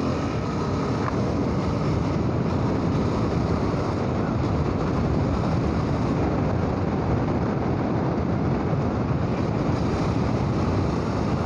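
KTM 390 Adventure being ridden at a steady road speed, heard from a bike-mounted camera: steady wind rush over the microphone mixed with the single-cylinder engine and road noise.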